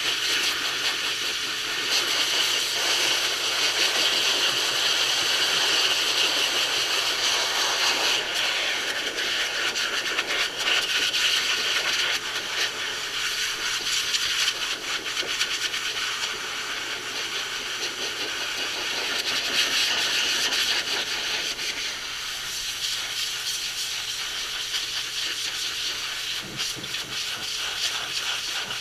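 Forced-air pet dryer blowing through its hose and nozzle onto a dog's coat: a steady rushing hiss of air over a low motor hum, rising and falling a little as the nozzle is moved over the fur.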